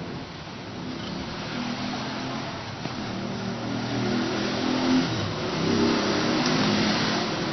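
A motor vehicle's engine running, growing louder over several seconds and easing off near the end, as of a vehicle passing by.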